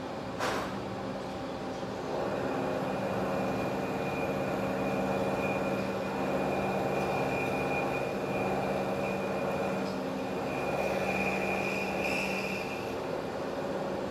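Milling machine running, its end mill cutting a flat side on a metal workpiece clamped in a vise while the table is fed by hand. A steady motor hum underlies it, with a sharp knock about half a second in; from about two seconds in the cut gets louder with a high steady whine that fades out near the end.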